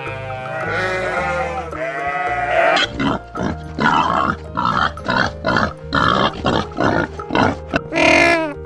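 Farm-animal calls over steady background music: drawn-out pitched calls, then a run of quick repeated grunts about three a second, and a short call near the end.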